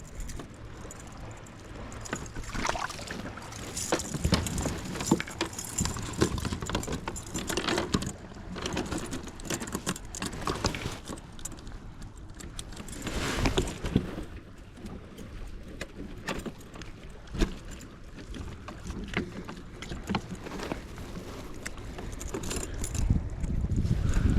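Irregular knocks, clicks and rustles of fishing gear being handled aboard a kayak, with small clinks like jangling keys.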